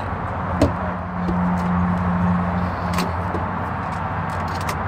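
A steady low mechanical hum, strongest for the first half, with a few short sharp clicks scattered through it.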